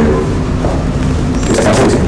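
Steady low rumble of a jet airliner's engines on final approach, with its landing gear down, and a brief hissing rise about one and a half seconds in.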